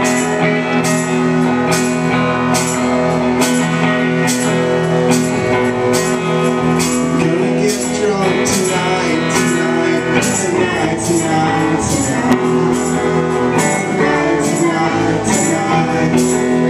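Live indie-rock band playing: electric guitars and bass holding loud chords over a steady drum beat, with a sharp drum-and-cymbal hit about once a second. A male lead vocal comes in at the mic in the second half.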